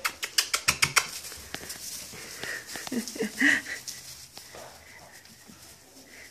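Cockapoo puppies scrabbling and rustling in wood shavings, with a quick run of clicks in the first second and a few short high squeaks about three seconds in.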